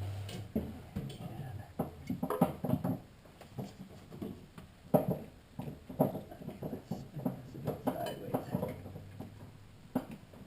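Metal hand tools, such as a spark plug socket and extension, clinking and knocking irregularly against engine parts in a cramped engine bay.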